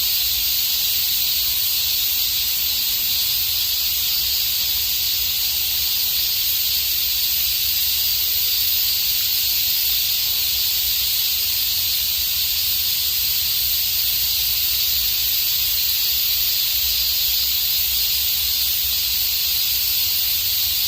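Cicadas in a steady, unbroken chorus, a high-pitched continuous buzz with no breaks.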